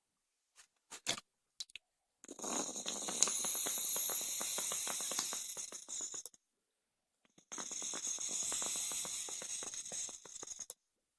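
Two long puffs on a rebuilt Aspire BDC bottom-dual-coil clearomizer: a rush of air with dense crackling and gurgling. The second puff is a little shorter. The gurgling comes from excess e-liquid in a head flooded by too much cotton.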